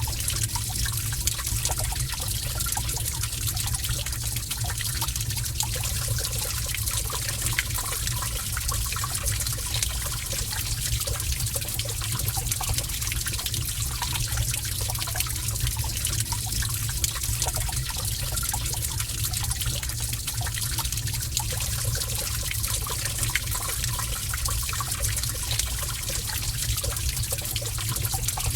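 Cave water ambience: gentle running water trickling steadily, with many small irregular splashes and drips.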